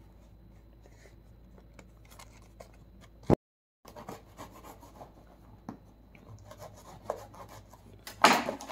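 Packaging of a cardboard mystery box being handled and opened: faint rubbing and scratching, a sharp click a little over three seconds in, and a louder rustle near the end. The sound cuts out completely for a moment just after the click.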